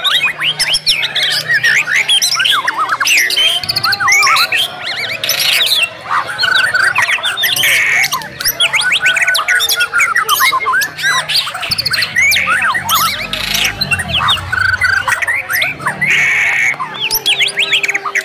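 Many white-rumped shamas (murai batu) singing at once in a dense contest chorus: rapid, overlapping whistles, chirps, trills and harsh buzzy notes with no pause, the kind of mixed song used to rile a pet shama into singing.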